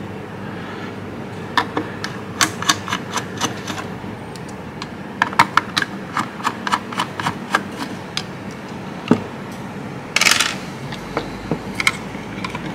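Irregular small clicks and taps of tools and plastic parts being handled while a circuit board is worked loose from a robot mower reference station's housing. There is a single knock about nine seconds in and a brief rustle just after ten seconds.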